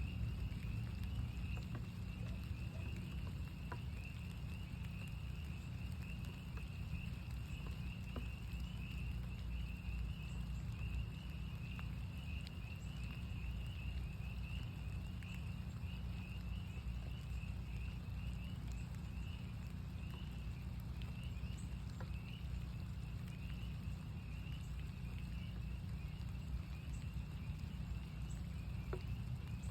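A chorus of northern spring peepers: many short, high peeps overlap into a continuous shrill band. Under it runs a steady low rumble of rain, with scattered drops ticking.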